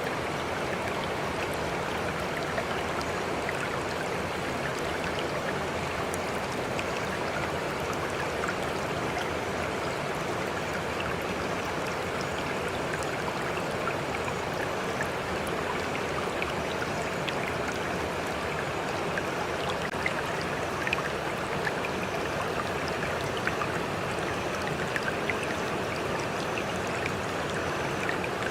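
Steady rush of running water, like a flowing stream, with faint small ticks here and there.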